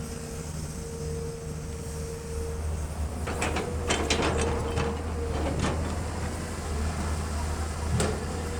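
Caterpillar 320 excavator's diesel engine running under a steady hydraulic whine. A burst of clanks and knocks comes a few seconds in, and one sharp knock comes near the end, typical of the bucket and its load striking metal while loading a dump truck.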